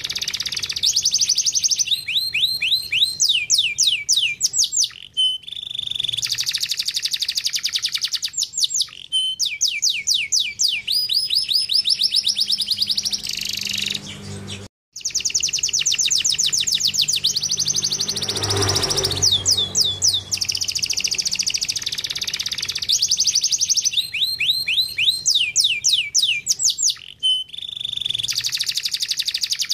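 Domestic canary singing a long song of fast trills: rolls of rapidly repeated chirping notes that change pattern every second or two, with a brief break just before halfway.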